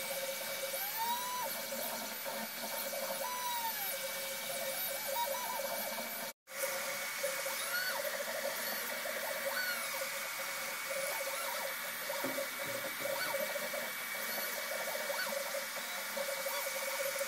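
Creality Ender 3 3D printer printing, its stepper motors whining in short rising-and-falling pitch sweeps as the print head and bed move, over a steady hum. The sound cuts out briefly about six seconds in.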